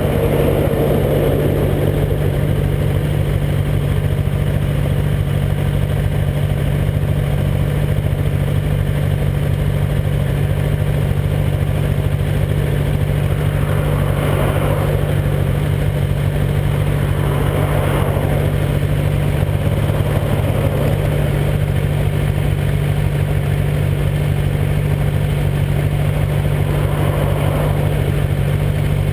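Motorcycle engine idling steadily while stopped, with passing traffic swelling and fading several times, a tanker truck crossing near the start.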